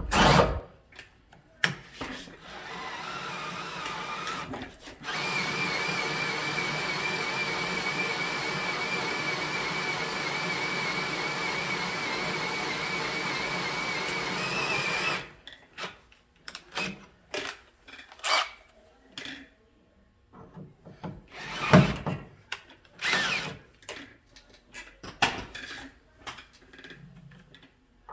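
Electric drill boring out a door hinge's bolt hole to a larger size. It runs briefly, then for about ten seconds with a wavering whine, and stops suddenly. Scattered clicks and knocks follow.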